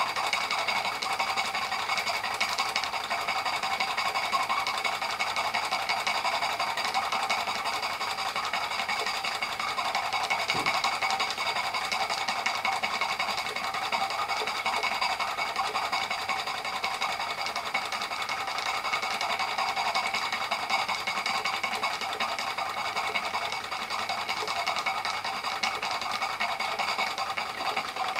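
Märklin 16051 twin-cylinder horizontal stationary steam engine running steadily on live steam, a rapid, even mechanical clatter.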